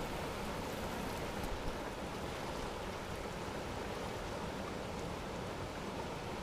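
River rapids rushing steadily over rock, an even whitewater rush.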